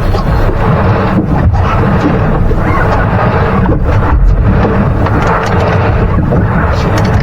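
Steady wind rumbling on the microphone, over the noise of a boat on choppy water.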